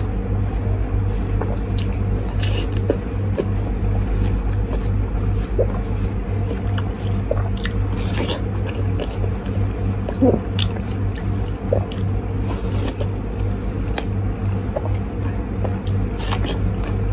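Juicy watermelon being bitten and eaten close to the microphone: wet squishing bites and chewing, with a louder slurp of juice every few seconds, four in all.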